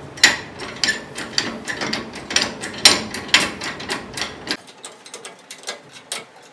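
Ratchet mechanism clicking in quick, irregular strokes, two to four clicks a second. A low background rumble cuts off about four and a half seconds in.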